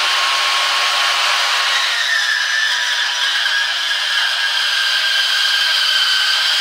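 Bauer 1678E-B portable metal-cutting bandsaw running with its speed dial at maximum, its 24-tooth blade cutting through a bundle of thin 24–26 gauge sheet-metal S-lock. A loud, steady motor and blade noise with high whining tones.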